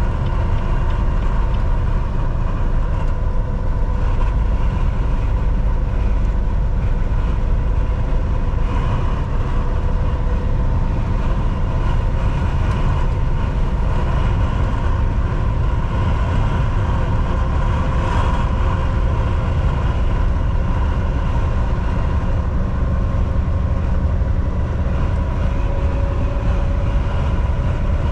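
Volvo VNL 760 semi truck cruising at highway speed: a steady drone of engine and road noise with a faint constant whine above it.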